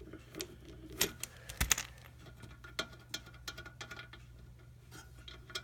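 Irregular light clicks and taps of a screwdriver working the set screw on a range hood's fan wheel hub, over a low steady hum.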